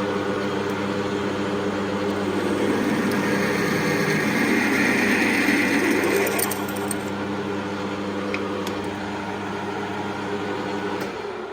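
Metal lathe running in gear with a steady hum while a tailstock drill bit cuts through a washer held in the chuck, enlarging its centre hole to 10 mm. The hiss of the cut is strongest from about three to seven seconds in.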